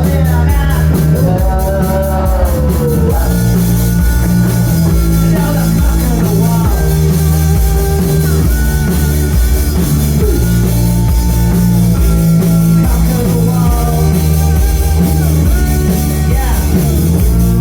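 A rock band playing live, loud and continuous, with guitar and a heavy bass and drum kit pulse under a melody line that bends up and down in pitch.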